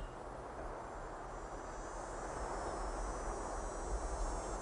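Open-air ambience: insects chirring steadily at a high pitch, growing clearer about a second and a half in, over a steady low rumble.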